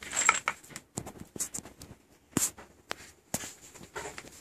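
Handling noise: scattered clicks and taps as hard plastic brush-cutter guard parts and a bagged tool kit are moved about and set down on a wooden floor.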